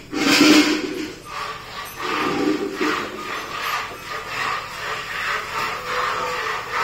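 Cow being milked by hand, with milk streams squirting into a pail in a rhythmic swishing. A brief louder sound comes near the start and again about two seconds in.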